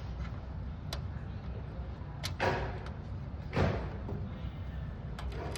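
Light clicks and knocks of small parts being handled in a metal computer case, with two short rustling swishes.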